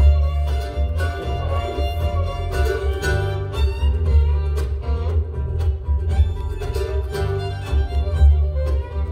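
Acoustic string band playing an instrumental tune: fiddle, mandolins and upright bass, with the bass line moving underneath and the mandolins picking over it.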